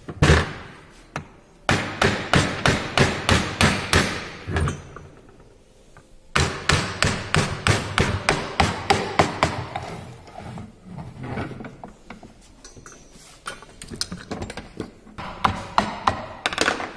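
Quick runs of sharp metal tapping, about four or five blows a second, as a hand tool strikes the aluminium housing of a brushless motor being knocked apart. There are three runs, near the start, in the middle and near the end, with quieter handling clatter between.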